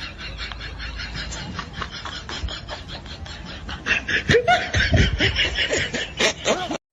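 Laughter: rapid breathy snickering bursts that turn into louder voiced laughs about four seconds in, then cut off abruptly near the end.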